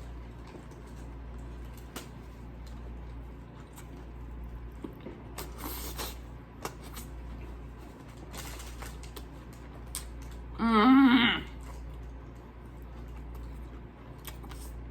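Close-miked chewing of a sub sandwich, with soft wet mouth clicks. About two-thirds of the way through comes one loud, low burp lasting under a second.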